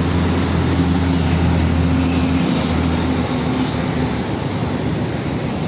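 A steady engine-like running sound with a low hum, as from a vehicle sound effect, continuing evenly with no change in pitch.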